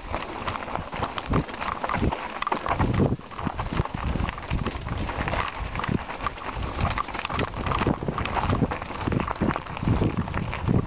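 Mountain bike riding down a rough gravel trail: tyres crunching over loose stones, with a constant run of knocks and rattles from the bumps.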